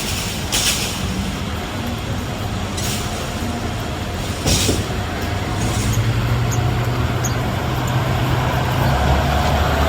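City street traffic: a heavy vehicle's engine running close by, getting louder over the last few seconds, with a few short hisses in the first half.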